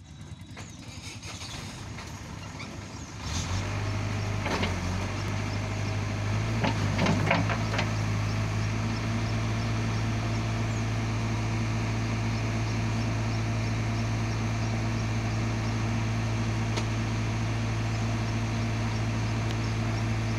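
JCB backhoe loader's diesel engine running steadily, getting louder about three seconds in and then holding level. A few short knocks sound between about four and eight seconds.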